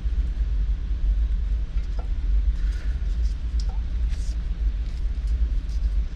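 Steady low rumble, with a few faint clicks and short scrapes over it.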